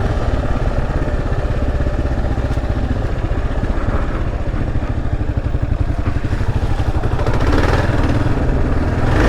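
Kawasaki KLR 650's single-cylinder engine running steadily under way on a dirt trail, a fast low pulsing that holds at an even level.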